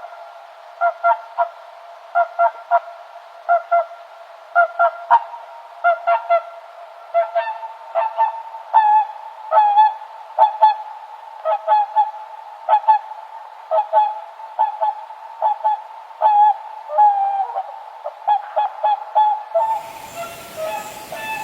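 Swans honking over and over: short nasal calls, often in quick pairs or triplets, over the steadier calling of other birds. Near the end a broad hiss comes in.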